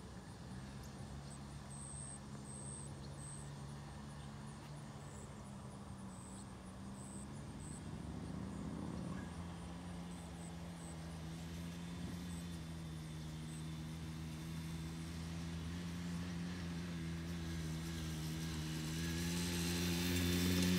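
Small youth ATV engine running at a distance. Its pitch shifts about nine seconds in, and it grows steadily louder as the four-wheeler comes closer near the end.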